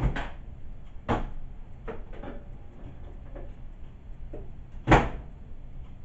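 Microwave oven door clicking open, a few light knocks as a plate is set inside, then the door shut with a loud clunk about five seconds in.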